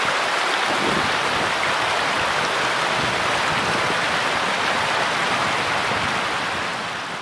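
Steady rushing of water, an even hiss with no rhythm or tone, easing off slightly near the end.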